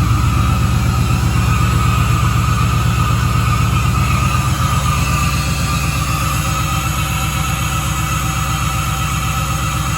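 LS V8 engine idling right after starting, a steady even low pulse that eases slightly as it settles.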